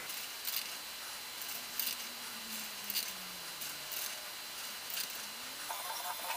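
Two felt-tip pens scratching lightly on paper as shapes are drawn with both hands at once, heard as faint, scattered scratchy ticks.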